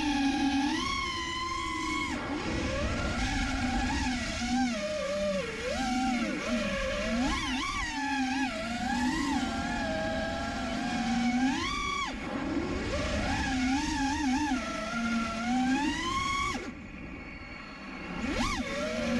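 Brushless motors and propellers of an FPV freestyle quadcopter whining, their pitch rising and falling constantly with the throttle. Near the end the whine drops away briefly, as the throttle is cut, then climbs back.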